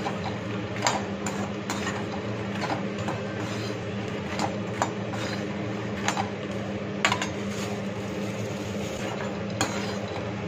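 A perforated metal slotted spoon scraping and clinking against an aluminium kadhai as makhana (fox nuts) are turned over in a little ghee. The knocks come irregularly, about one every second, over a steady low hum.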